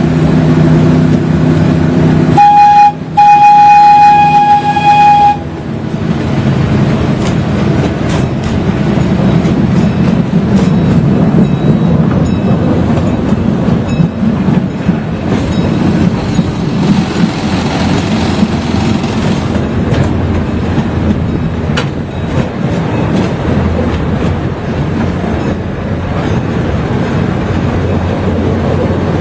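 Miniature zoo ride train under way. Its horn sounds about two and a half seconds in, a short blast and then a longer one of about two seconds, and this is the loudest thing heard. After that comes the steady running noise of the train rolling along the track, with occasional clicks.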